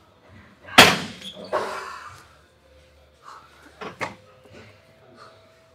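Gym weights set down with a single sharp clank about a second in, followed by a short rush of noise and two lighter knocks a little later.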